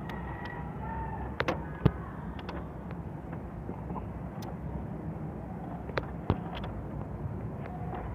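Outdoor background noise: a steady low rumble, with a few sharp clicks about a second and a half in and again about six seconds in.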